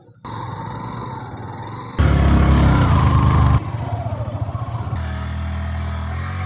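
Motorcycle engine running through several short clips cut together, the sound changing abruptly at each cut; it is loudest for a second and a half about two seconds in.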